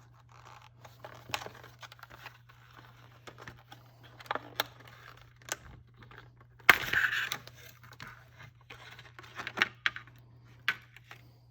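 Engineer screw pliers being handled: scattered light clicks and rustling, with a louder scraping rustle about seven seconds in.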